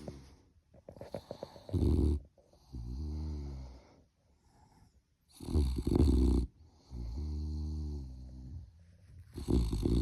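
Sleeping puppy snoring: a loud snore about every four seconds, three in all, each followed by a quieter, longer breath with a humming pitch. A few short snuffling clicks come about a second in.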